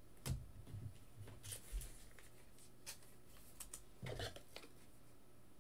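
Faint scattered clicks and light rustles of a trading card being handled into a plastic penny sleeve and rigid top loader.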